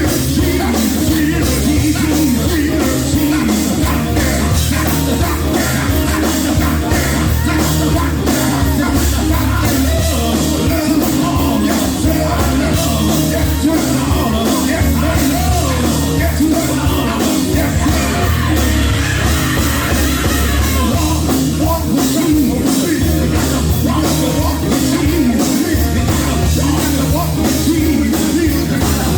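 Loud live gospel band music with a steady driving beat and heavy bass, played as an instrumental vamp between sung lines.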